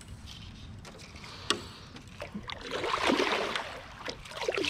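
Kayak paddle strokes splashing in the water, with a single sharp knock about one and a half seconds in.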